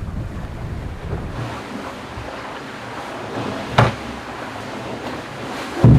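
Sea water washing along a racing yacht's hull, with wind on the microphone. Two sharp knocks sound on board, one about four seconds in and one near the end.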